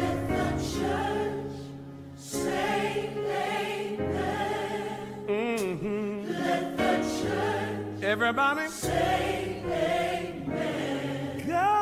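Gospel music: a choir singing, with held, wavering sung notes over steady lower tones.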